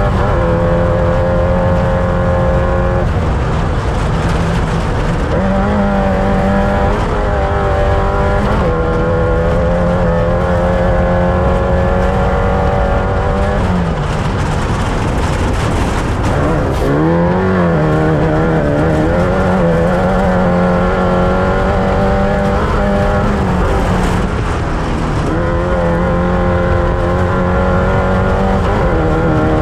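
Off-road race vehicle's engine running hard at high revs, its pitch dropping and climbing back several times as it shifts or comes off the throttle, with a wavering rise and fall a little over halfway through, under a steady rush of noise.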